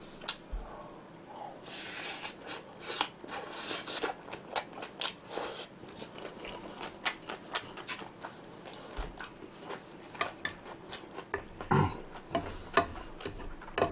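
A person chewing a mouthful of spicy stir-fried pork and rice close to the microphone: many quick wet smacks and clicks of the mouth, with a couple of louder clicks near the end.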